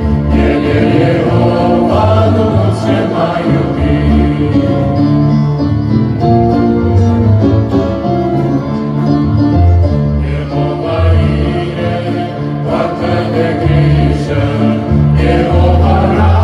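Mixed choir of young voices singing a Romanian worship song in harmony, accompanied by acoustic guitar over a steady bass line.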